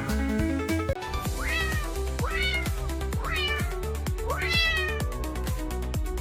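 A cat meowing over and over, a series of rising-then-falling meows starting about a second in, laid over background music with a steady beat.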